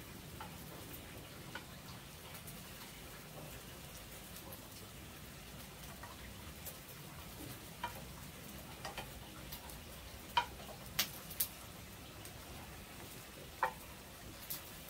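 Round dough cakes frying in a pan over a wood fire: a faint steady sizzle, with scattered sharp clicks, a few louder ones about ten to fourteen seconds in.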